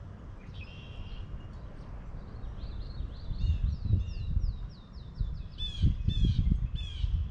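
A songbird singing a quick run of repeated down-slurred whistled notes, ending in a few harsher notes near the end, over gusts of wind rumbling on the microphone.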